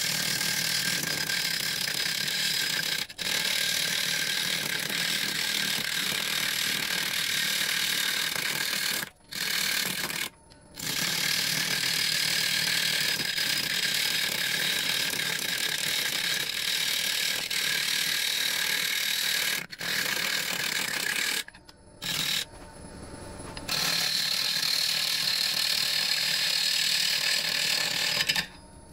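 Turning gouge cutting a spinning tree-root blank on a Rikon 70-220VSR wood lathe: a steady hissing scrape of steel on wood. It breaks off briefly several times.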